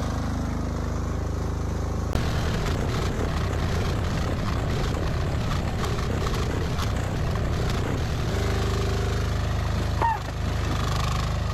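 HT08 mini excavator's small engine running, with a busier, slightly louder note from about two seconds in that settles again about eight seconds in. A short rising squeak comes about ten seconds in.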